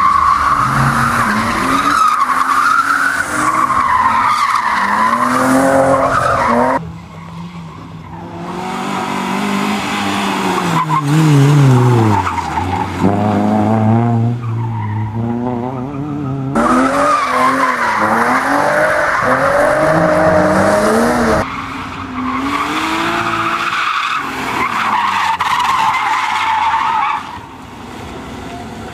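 Cars drifting on tarmac: engines revving up and down while the tyres squeal in a wavering high tone, in several clips joined by abrupt cuts. The drifting cars include BMW 3 Series (E36) saloons and a Compact.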